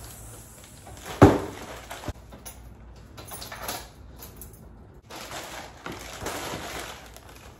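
A cardboard box is set down on a hardwood floor with a sharp thump about a second in, followed by a lighter knock. Later come softer handling noises and the rustle of a plastic mailer bag being put down.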